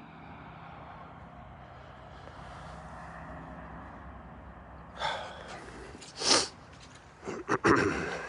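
Low steady background hum, then several short, sudden breathy bursts close to the microphone, like sniffs or a sneeze, the loudest about six seconds in and a quick cluster near the end.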